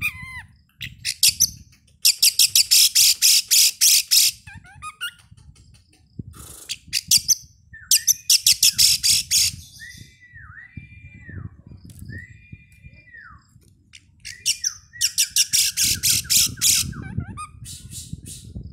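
Oriental magpie-robin (kacer) singing: loud bursts of rapid, scratchy trilling, three of them about one to two seconds each. Between the second and third bursts come a few clear whistled notes that dip and rise again.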